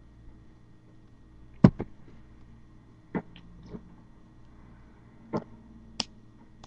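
A handful of short, sharp clicks and taps at irregular moments, about six in all, over a low steady room hum.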